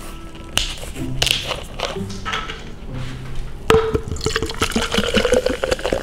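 Carbonated orange Fanta poured out of its bottle, starting with a click about four seconds in. It fizzes and crackles, and the filling tone rises slightly as the vessel fills.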